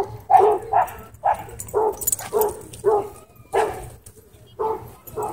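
A dog barking repeatedly during play, about two barks a second, with a short pause near the end.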